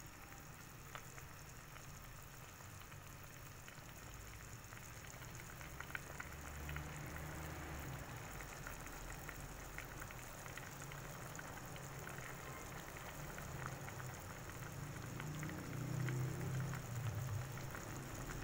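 Pot of chicken tinola broth boiling on the stove: a steady bubbling and popping patter that grows louder, strongest near the end.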